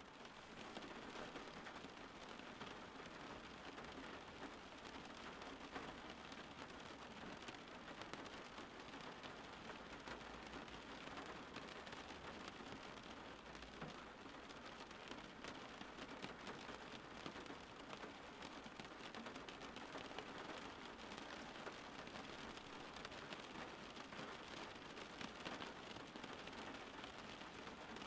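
Steady rain falling: an even hiss scattered with many small drop taps.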